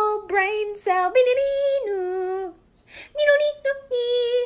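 High-pitched singing voice holding long notes that step up and down in pitch, with short breaks between phrases.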